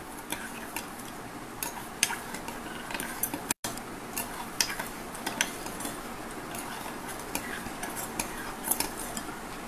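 Metal spoon stirring yogurt, milk and sugar in a glass bowl, clinking irregularly against the glass as the sugar is mixed in to dissolve. The sound drops out for an instant a little past three seconds in.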